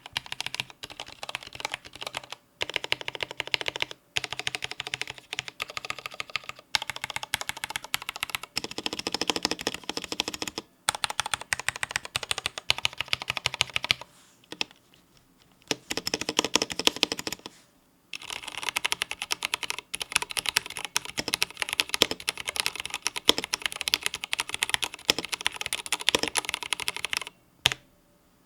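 IQUNIX L80 wireless mechanical keyboard with Cherry MX Red linear switches being typed on fast, a dense run of key clacks with two short pauses partway through and a stop near the end.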